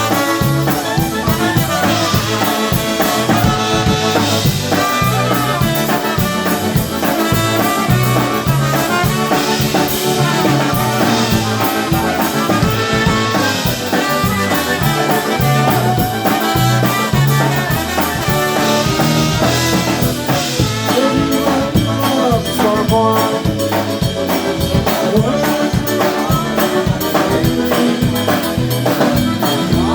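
Live polka band playing an instrumental passage: horns over a drum kit keeping a steady beat.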